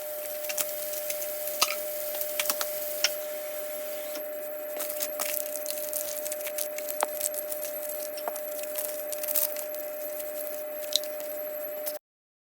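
Scattered light clinks and taps of hard objects being handled, over a steady hum.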